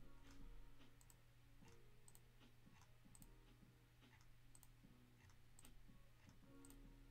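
Faint clicks of a computer mouse, about one a second, over a low steady hum.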